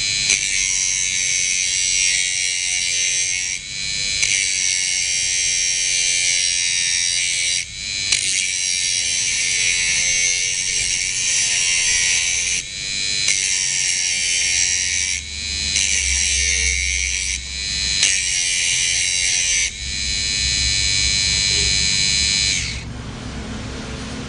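Small electric grinder running at high speed with a high-pitched whine. Its pitch and level dip briefly every few seconds, then pick up again. It shuts off near the end.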